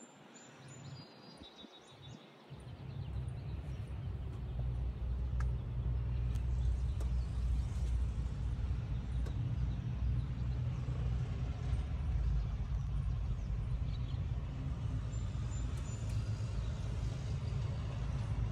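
Honda Civic SiR's B16A DOHC VTEC four-cylinder engine idling, a steady low rumble that comes in about two and a half seconds in.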